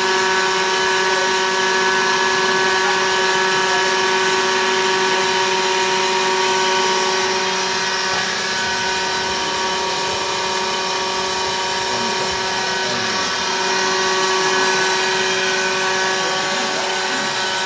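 Grinding machine running, its spinning abrasive wheel grinding a metal workpiece held in a chuck and throwing sparks: a steady whine made of several held tones over a continuous hiss.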